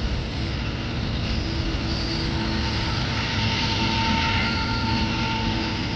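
Boeing 787-8's Rolls-Royce Trent 1000 turbofan engines running at climb power as the airliner climbs away after takeoff: a steady jet rumble. A faint whine joins in about a second and a half in, and the sound swells slightly towards the middle.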